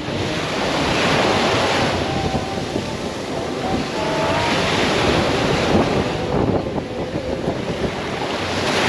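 Small sea waves breaking on a sandy beach and washing up the shore, swelling and easing about every four seconds.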